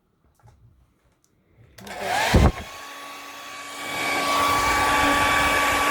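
A hair dryer switched on about two seconds in, with a thump as it starts. Its motor whine rises and then holds steady over the rushing air, which grows louder about four seconds in.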